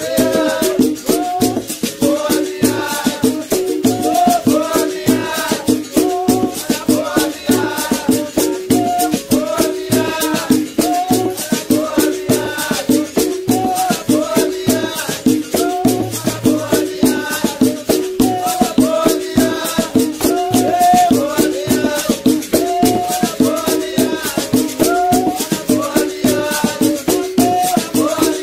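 Berimbau music: the wire-strung musical bow played in a quick, steady rhythm of plucked twanging notes, with the caxixi basket rattle shaking along with the strokes.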